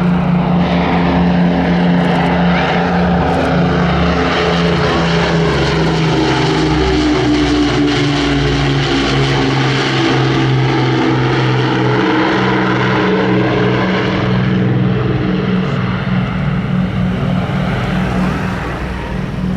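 Avro Lancaster bomber's four Rolls-Royce Merlin piston engines droning in a low flypast. The propeller note dips in pitch towards the middle and climbs again later as the aircraft passes and turns.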